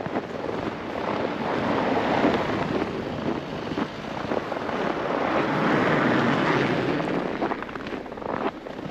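Vehicles passing on a street: a swell of road and tyre noise about two seconds in, and a louder one around six seconds that rises and fades away.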